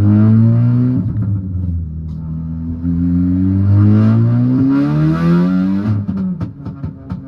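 Turbocharged 2.0-litre four-cylinder of a tuned 2018 Golf R with a catless downpipe and single-exit exhaust, accelerating hard through the gears. The engine note rises in pitch, breaks at upshifts about one and five seconds in, and climbs again. About six seconds in, off the throttle, comes a quick run of sharp cracks.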